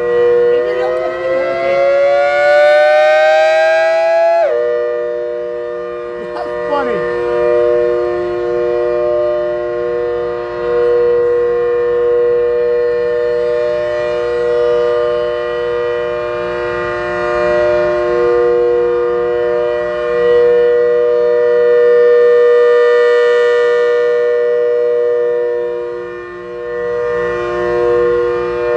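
ACA Hurricane MK1 electromechanical siren sounding. Its chord of tones glides upward for about four seconds, then holds a steady wail that swells and fades slowly in loudness.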